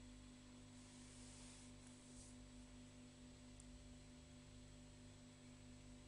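Near silence: a faint steady low hum, with a brief soft hiss about a second in.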